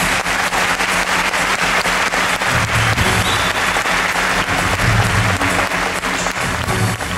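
A large audience applauding, a dense patter of clapping, with the act's backing music playing underneath.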